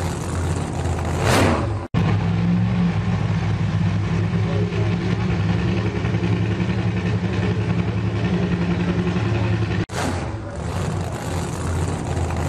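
Engine sound effect: a steady motor hum that cuts out sharply for an instant twice, about two seconds in and again near ten seconds, with a whoosh about a second in and another at the end.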